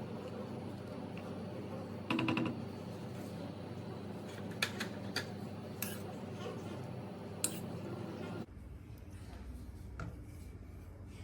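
Cookware and utensils clinking a few times, with a quick rattle of strikes about two seconds in, over a steady background noise that drops off abruptly near the end.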